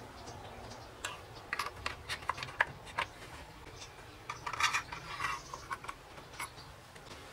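Small metal parts clicking and rubbing as a thin steel drive shaft is fed through a brass shaft tube and fitted to a model boat's motor mount. There are scattered sharp clicks from about a second in, then a denser run of clicks and scraping past the middle.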